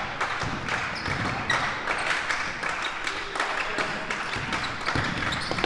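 A basketball bouncing on a gym floor during game play, many short thuds, over a background of faint voices.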